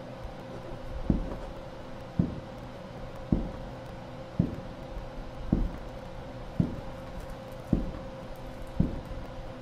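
Slow, regular low thumps, about one a second, eight in all, over a steady hum.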